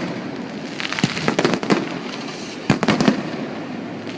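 Fireworks going off: a steady crackle with sharp bangs, bunched in quick runs about one and a half seconds in and again near three seconds.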